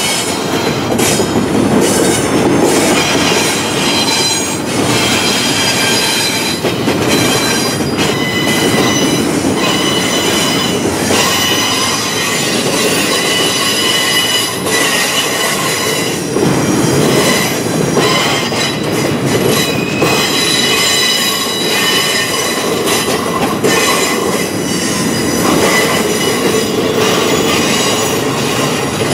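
Freight train of double-stack intermodal well cars rolling past, steel wheels rumbling steadily on the rails with high-pitched wheel squeal that comes and goes and occasional clacks.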